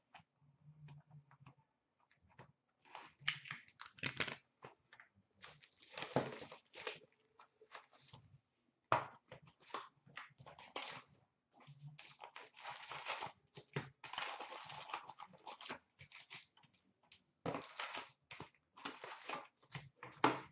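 Plastic shrink wrap being torn off a trading card box and crinkled by hand, with the cardboard box being opened: irregular rustling, crackling and tearing in short spurts.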